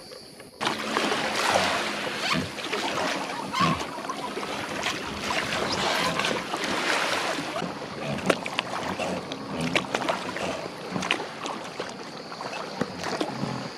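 Inflatable dinghy being rowed: oars splashing and water rushing, with scattered sharp knocks. It starts suddenly about half a second in.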